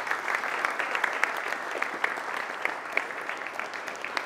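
Group of people applauding: steady, dense clapping.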